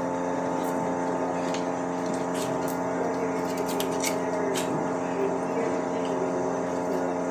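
A steady machine hum with several constant tones, under scattered short clicks and scrapes of a knife cutting around the knee joint of a beef round. The clicks come mostly in the middle.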